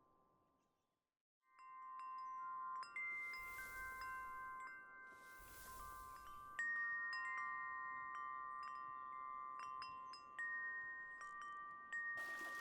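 Bright chiming tones, struck one after another and left ringing over each other, starting abruptly after a moment of silence. Two short hissing swishes come a few seconds in.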